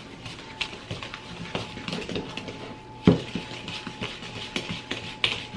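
Wooden spoon stirring thick muffin batter in a mixing bowl: an irregular run of scrapes and light knocks against the bowl, with one sharper, louder knock about three seconds in.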